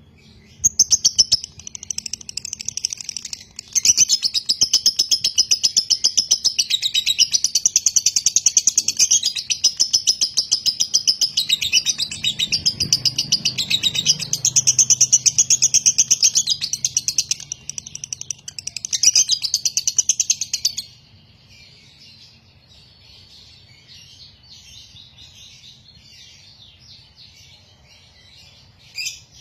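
Fischer's lovebird chattering in one long, rapid, almost unbroken stream for about twenty seconds, then stopping abruptly. This is the long 'ngekek' chatter that marks a 'konslet' lovebird. Fainter chattering follows, with a short loud burst near the end.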